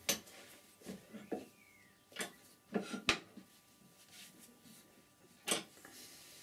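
Scattered light knocks and clicks, about seven, from hands working a stopped wood lathe's tool rest and the sycamore blank; the sharpest comes about three seconds in.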